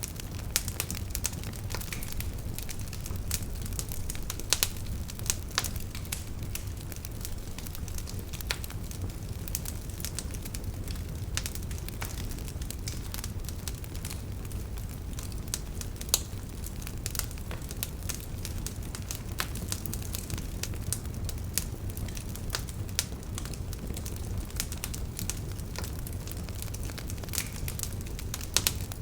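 Campfire burning, crackling steadily with frequent sharp pops at irregular intervals over a low, steady rumble.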